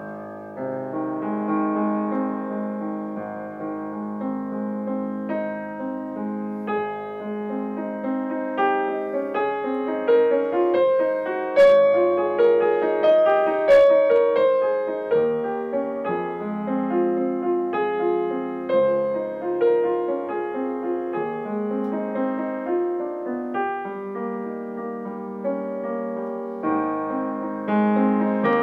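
Piano played with both hands: a melody over sustained chords, in a warm, singing style.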